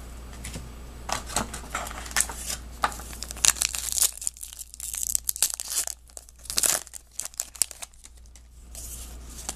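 Trading-card pack wrapper being torn open and crinkled by hand, in irregular crackly bursts with a couple of quieter pauses.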